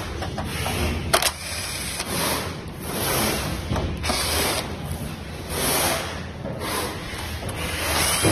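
Electric heater's fan motor running with a steady low hum and a rasping hiss that swells and fades about once a second. One sharp click comes about a second in.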